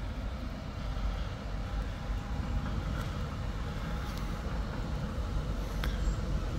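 A tram running along its street track: a steady low rumble with a faint whine, and a few light clicks.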